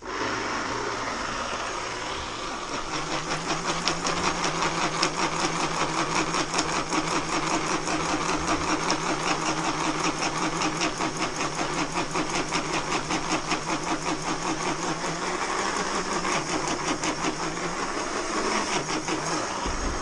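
Countertop blender motor running, grinding dry annatto seeds with corn flour into colorau, with a fast pulsing rattle. It starts suddenly and stops near the end, and the jar is shaken by hand partway through to keep the mix turning.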